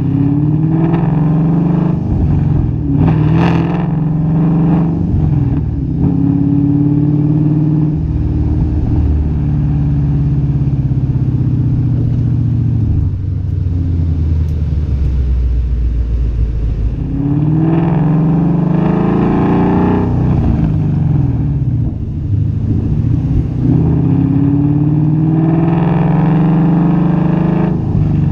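2015 Mustang GT's 5.0 V8 heard through American Racing headers, an H-pipe and Pure Thunder mufflers, with no catalytic converters or resonators. The car accelerates several times, the exhaust note climbing in pitch with each pull, and settles to a lower, steadier note while cruising in between.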